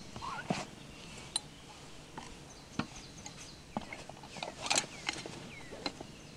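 Wood fire crackling in a small steel tent stove: scattered sharp pops, with a quick cluster of them a little past the middle. A few short bird chirps come in between.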